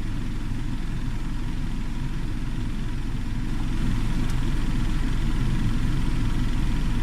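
A car's engine running, heard from inside the cabin as a steady low rumble that grows a little louder about four seconds in.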